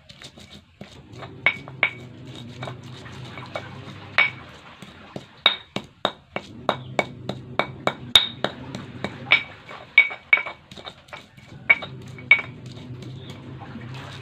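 Stone pestle knocking and grinding in a stone mortar (cobek and ulekan), crushing chillies and garlic: a run of sharp, irregular clacks that stops shortly before the end, with a low hum underneath at times.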